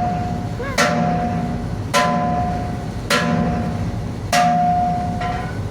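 Hammer blows on a metal tug-boat exhaust stack being shaped, five strikes a little over a second apart. Each strike leaves the metal ringing with a clear tone.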